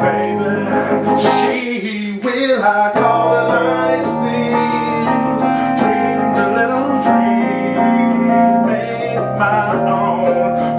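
Wurlitzer EP200 electric piano playing held chords that change every second or two.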